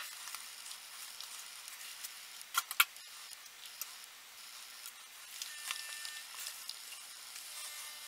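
Eco-printed paper sheets rustling and crackling as they are handled and laid over one another by hand, with a few sharp snaps about two and a half seconds in, the loudest moment.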